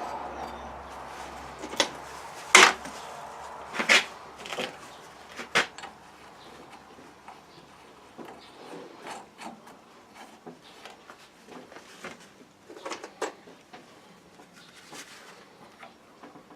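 Sharp knocks and clunks of a metal wheel guard being handled and fitted onto a surface grinder, several in the first six seconds and a quick pair about thirteen seconds in.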